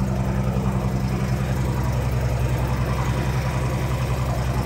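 Mercedes six-litre six-cylinder turbo diesel truck engine idling steadily.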